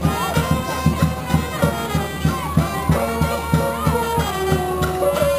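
Lively music with a quick steady beat, about four strokes a second, and a melody line above it.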